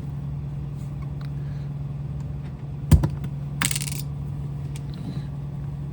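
One sharp metal knock as the pin is driven through the Tikka T1X bolt, followed about half a second later by a short high metallic jingle of the small pin falling out onto a hard surface. A steady low hum runs underneath.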